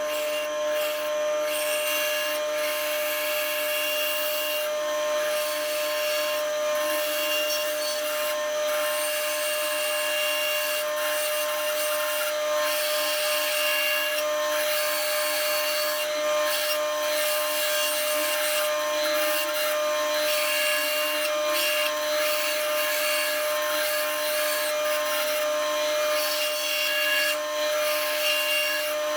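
Power saw cutting wood: a steady motor hum with the rasp of the fine blade through the wood, dipping briefly now and then.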